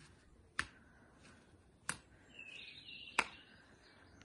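Three sharp smacks about a second and a quarter apart: a foot landing rear-leg roundhouse kicks on a target held up in a gloved hand.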